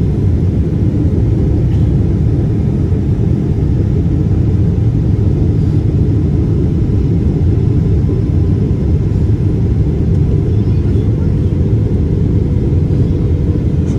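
Steady low rumble inside the cabin of a Boeing 777-300ER, from its General Electric GE90-115B turbofans and the air rushing past the fuselage, while the airliner descends on approach to land.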